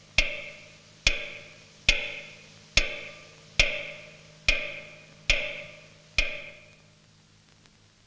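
Slow, evenly paced footsteps echoing through a large empty station hall, each step ringing on after it lands. Eight steps, stopping about six seconds in.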